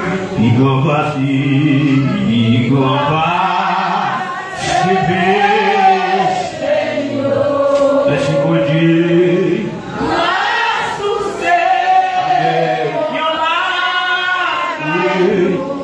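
A group of voices singing a hymn together in long sung phrases, with short breaks between them.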